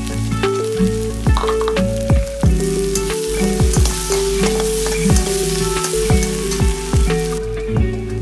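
Chopped onions sizzling in hot oil in a wok as a metal spatula stirs them; the sizzle grows louder about two and a half seconds in and cuts off suddenly near the end. Background music with a steady beat plays under it.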